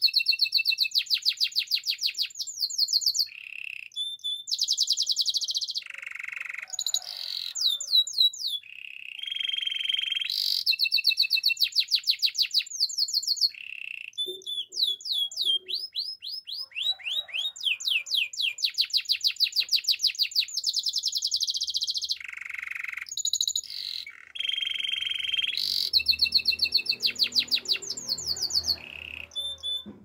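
Canary singing a long, loud song made of fast trills of rapidly repeated notes and rolling, held notes, with higher sweeping notes, in phrases of a few seconds separated by brief pauses.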